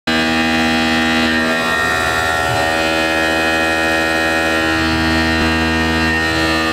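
Tormach CNC mill running, with a steady whine of many tones as its end mill cuts a metal block.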